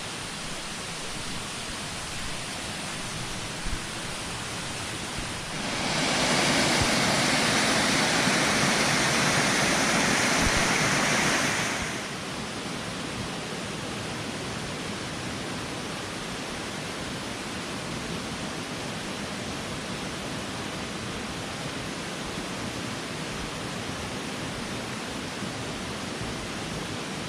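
Steady rushing noise with no distinct events, louder for about six seconds near the middle, starting and stopping abruptly.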